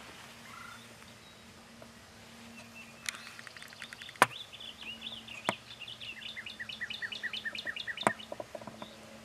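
A songbird singing a long series of quick down-slurred chirps, starting about three seconds in and lasting some five seconds. Three sharp clicks cut through it, the loudest near the middle.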